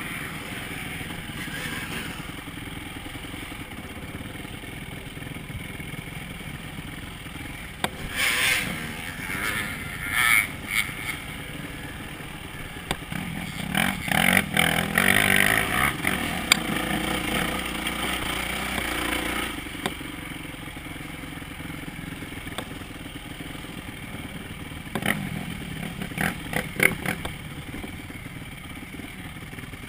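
Dirt bike engine heard from on board while riding, with the throttle opening into louder rough stretches about eight to eleven seconds in and again from about thirteen to nineteen seconds. Near the end come a quick run of sharp clatters and knocks.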